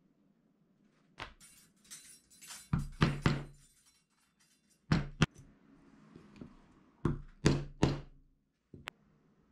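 Mallet blows on a metal punch held against a strap on a work board: about ten sharp thuds, most in quick groups of two or three, each with a short low ring.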